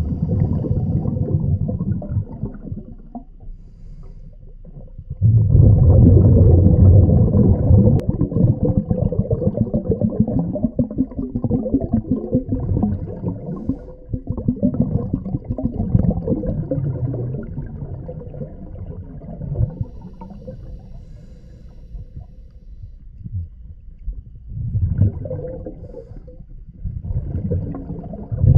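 Scuba divers breathing underwater through regulators: exhaled bubbles in long bursts of a few seconds, with quieter pauses between breaths and a faint steady hum throughout.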